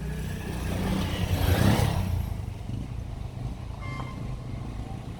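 A motor vehicle passes close by: its engine and road noise swell to a peak about a second and a half in and then fade. A steady low engine hum runs underneath.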